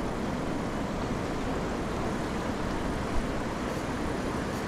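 Steady rushing of the fast-flowing Seti River, with one short knock about three seconds in.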